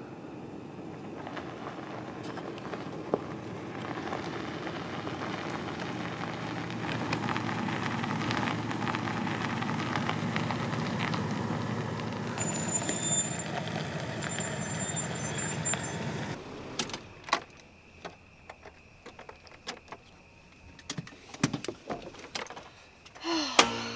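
A car driving up, its engine and tyre noise growing steadily louder, with high squeaks near the end of the approach. About sixteen seconds in the sound cuts off suddenly, and what follows is a quiet car interior with scattered clicks and a faint steady tone.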